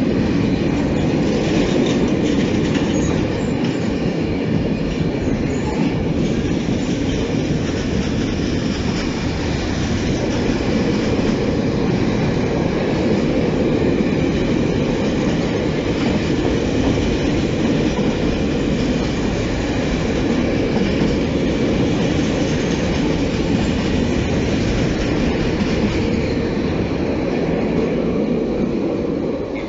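Long freight train of sliding-wall covered wagons rolling past close by, a loud, steady rumble of steel wheels on the rails. The sound falls off just at the end as the last wagons pull away.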